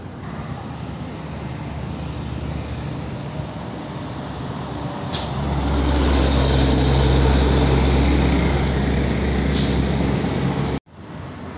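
Diesel truck engine running as a box truck drives away. From about five seconds in, the louder, steady diesel engine of an Isuzu Giga concrete mixer truck runs close by, then cuts off suddenly near the end.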